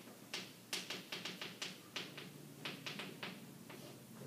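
Chalk tapping and scratching on a chalkboard as someone writes, a quick, irregular run of short taps, over a faint steady low hum.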